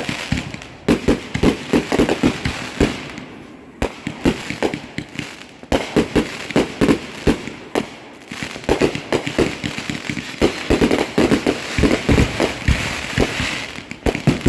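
Fireworks going off: many sharp bangs in quick, irregular succession, several a second, with brief lulls about three and eight seconds in.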